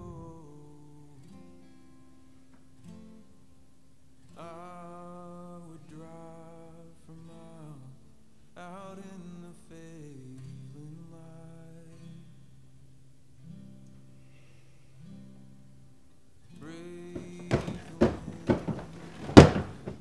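Soundtrack song: a voice singing slow phrases over guitar. Near the end a cluster of loud thumps and bangs cuts in; the last one is the loudest.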